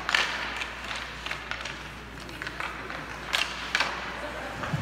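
Ice hockey play on an arena rink: a run of sharp clacks from sticks striking the puck and ice, over the hiss of skate blades scraping. Two louder clacks come a little past three seconds in.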